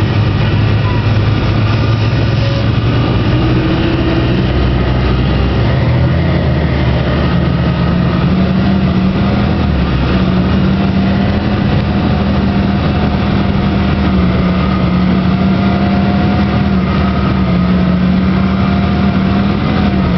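Off-road vehicle engine running steadily close by. Its pitch climbs about six seconds in as it revs up, then holds higher with slight rises and falls.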